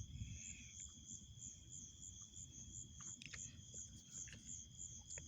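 Crickets chirping at night: a high, evenly pulsed chirp about three times a second over a steady high trill. Faint scattered clicks and a low rumble sit beneath it.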